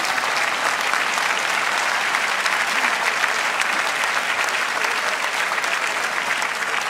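Large crowd applauding: a dense, steady clatter of many hands clapping.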